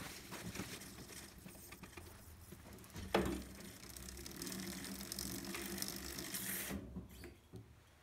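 Bicycle chain drivetrain turned by hand on a repair stand, its chain freshly lubed: light rapid ratcheting clicks at first, then about three seconds in the cranks are spun and the chain runs with a steady whir and a hiss that cuts off suddenly near the end. The chain is rubbing on the front derailleur, which needs adjusting.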